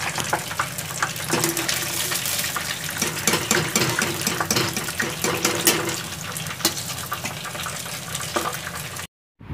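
Hot oil sizzling and crackling with many small pops as breadcrumb-coated chicken and potato balls deep-fry in a pan; the sound cuts off abruptly near the end.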